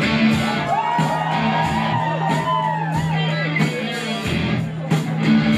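Rock band playing: electric guitar over a steady bass line and drums.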